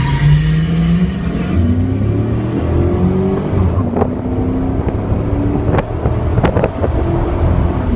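Car engines accelerating hard from a standing start. The pitch climbs, drops at each gear change and climbs again, several times over, with a few sharp cracks through the middle.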